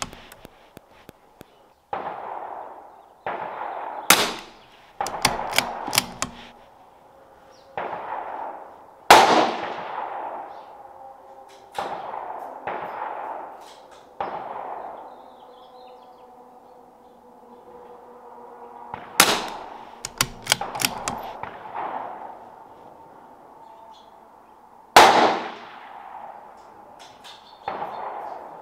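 A dozen or so .22 LR rifle shots at uneven intervals, the loudest four about 4, 9, 19 and 25 seconds in, each leaving a ringing tail under the covered firing line. Sharp metallic clicks between some of the shots come from the bolt being worked.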